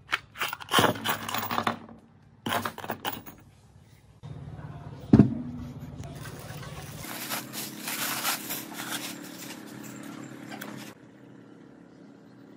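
Workshop handling sounds: short bursts of scraping and clattering, a single sharp knock about five seconds in, then a few seconds of crinkling as the paint-covered plastic masking is pulled out of the gearbox housing.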